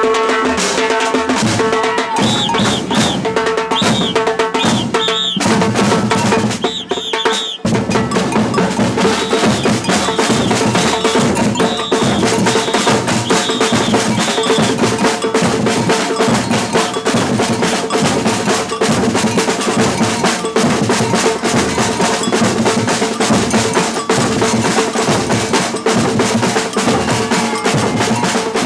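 Batucada percussion group playing a driving samba rhythm. For the first seven seconds or so the lighter drums play without much bass, then the deep bass drums come in and the full group plays on.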